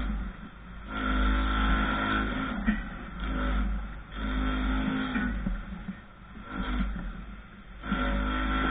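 Handheld power tool worked against a concrete wall during concrete repair, running in repeated bursts of one to two seconds with short pauses between them.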